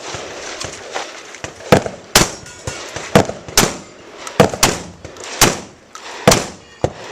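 A shotgun fired in rapid succession on a shooting course: about eight loud shots, uneven, half a second to a second apart.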